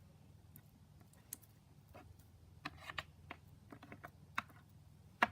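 Faint, irregular light clicks and taps of small objects being handled, coming more often midway through, over a low steady hum.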